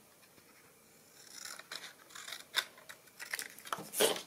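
Scissors cutting through paper: a quick series of snips and paper crackle starting a little over a second in, the loudest stroke near the end.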